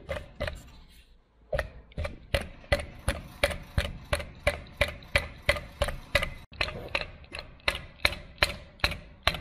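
Hammer blows in a steady, evenly spaced run of sharp knocks, about two and a half a second, starting about a second and a half in.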